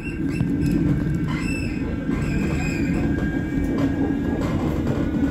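Manchester Metrolink M5000 tram running along the track, heard from inside the passenger car: a steady rumble of wheels on rail.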